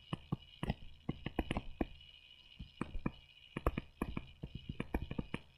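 Stylus tapping and clicking on a tablet screen as handwritten symbols are drawn: a string of small, irregular taps, with a faint steady high tone underneath.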